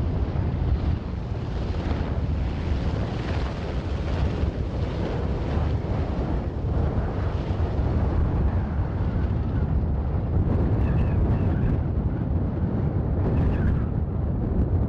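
Sikorsky CH-148 Cyclone helicopter flying past and climbing away: a steady, heavy rotor and twin-turboshaft rumble.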